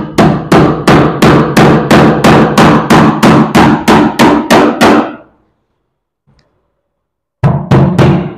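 Hammer driving nails into a plywood sofa frame to tack the armrest in place: a fast, even run of blows, about three a second. It stops about five seconds in and starts again near the end.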